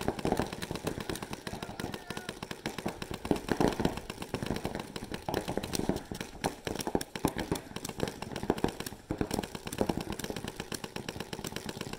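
Paintball markers firing rapid strings of shots, many sharp pops a second, with short lulls between strings.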